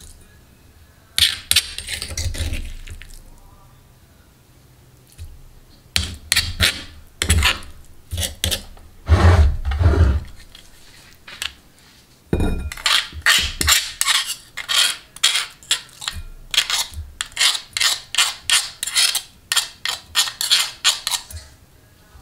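A metal spoon scraping chilli sambal off a cobek mortar into a ceramic bowl, with scrapes and clinks against the mortar and the bowl rim. Near the middle it turns into a quick run of short scrapes, about three a second.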